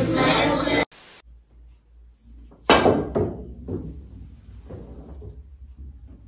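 A snooker-size ball struck with a cue on a pool table: one sharp loud knock, then a few fainter knocks dying away as the ball rebounds off the cushions and rolls across the cloth.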